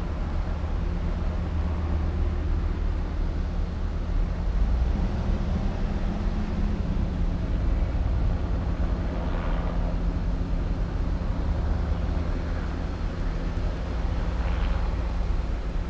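Slow procession of cars and SUVs driving past: a steady low engine and road rumble, with the tyre hiss of a passing SUV swelling and fading twice, about nine and fourteen seconds in.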